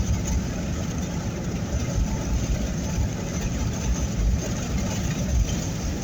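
Steady low rumble of a moving vehicle heard from inside the cabin: engine and road noise, with strong wind against the body.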